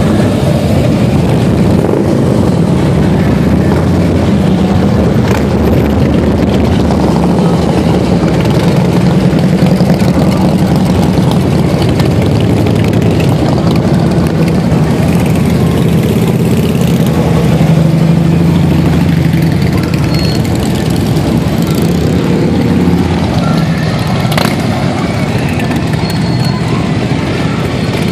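A column of large cruiser and touring motorcycles riding past slowly one after another, their engines running at low revs. The sound holds steady, with slight swells as bikes pass close.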